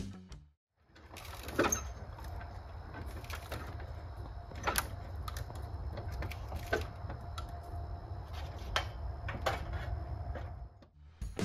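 Live site sound of wall framing: a handful of sharp knocks, one to two seconds apart, over a steady low rumble.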